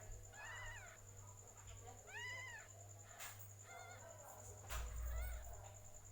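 Cat mewing: about four short calls that each rise and fall in pitch, spaced a second or two apart. A dull low bump comes a little under five seconds in, and a faint steady hum lies underneath.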